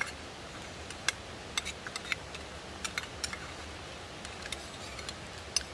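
Eating sounds: a metal spoon clinking and scraping in a stainless-steel bowl, giving irregular sharp clicks and clinks, some with a short ring, over a steady outdoor background hiss.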